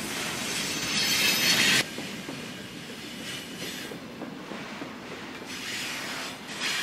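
Freight train flatcars rolling past at close range, steel wheels rumbling on the rails with high-pitched wheel squeal. The squeal is loudest about a second in and cuts off suddenly, then comes back faintly and again near the end.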